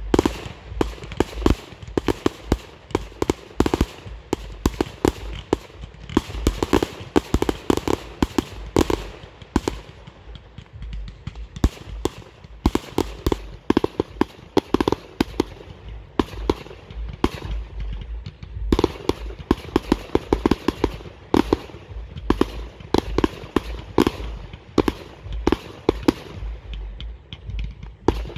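Aerial fireworks display: a rapid, continuous barrage of shell bursts and cracks, several bangs a second, easing briefly about ten seconds in before picking up again.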